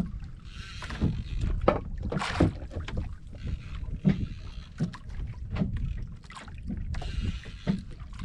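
Wind buffeting the microphone over a constant low rumble, with small waves slapping and splashing irregularly against the hull and outriggers of a small outrigger boat.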